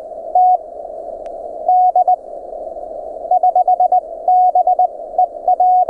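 Morse code (CW) signal heard through an amateur radio receiver: a tone of about 700 Hz keyed in dits and dahs over steady band hiss narrowed by the receiver's audio filter.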